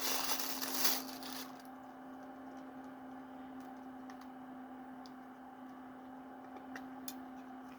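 Rustling and crinkling of a Happy Meal toy's plastic packaging being opened and handled for about the first second and a half. After that only a faint steady hum remains, with a few light clicks near the end.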